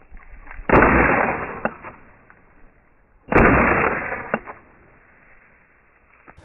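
Two shotgun shots about two and a half seconds apart, each a sharp report followed by a long rolling echo that dies away over about a second.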